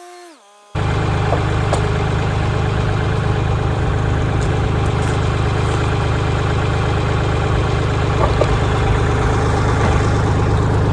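Background music slides down in pitch and cuts off under a second in, giving way to a Kioti CK3510SE compact tractor's three-cylinder diesel engine idling steadily.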